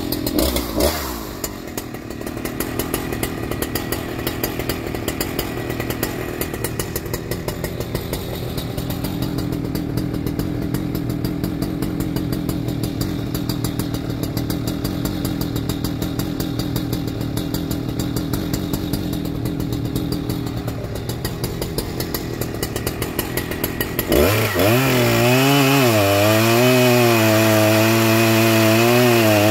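Husqvarna 3120XP big-bore two-stroke chainsaw idling steadily with a rapid pulsing beat. About 24 seconds in it revs hard and goes into a cut through a large log, its pitch dipping and recovering as the chain bites under load.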